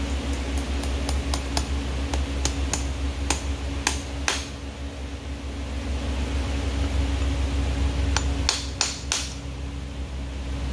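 Farrier's driving hammer striking horseshoe nails being driven through a steel shoe into a horse's hoof: a run of about a dozen sharp metallic taps over the first four seconds, spaced wider and harder as they go, then a few more strikes near the end, over a steady low hum.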